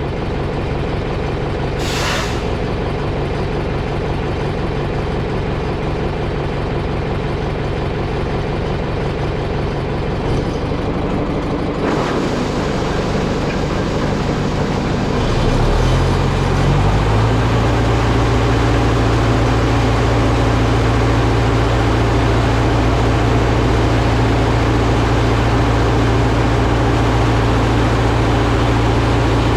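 A heavy farm vehicle's engine running steadily. About sixteen seconds in its pitch steps up and it runs louder, as if throttled up. A brief hiss comes about two seconds in.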